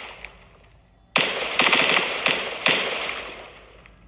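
Aerial fireworks bursting. A fading tail gives way to a near-quiet moment, then a sharp bang comes a little over a second in and four more follow over the next second and a half, the noise dying away toward the end.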